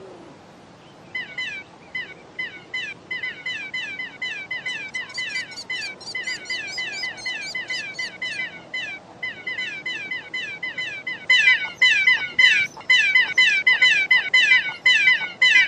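Baby pterodactyls in a cartoon cheeping over and over: quick, short, high chirps that fall in pitch, several a second. They start about a second in and grow louder in the last few seconds.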